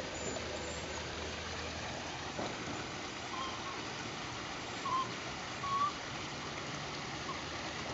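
Steady outdoor background hiss, with a few faint short high chirps about three and five seconds in.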